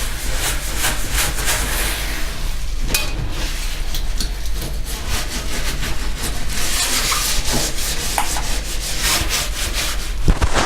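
Damp microfibre cleaning cloth scrubbing a greasy stovetop in quick back-and-forth strokes, a continuous run of brief rubbing swishes.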